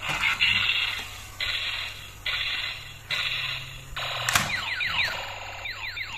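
Battery-powered transforming robot toy car running its gear mechanism, a rapid ratchet-like clicking and whirring. Its electronic sound effects play in repeated short blocks, then fast rising and falling sweeps from about four seconds in.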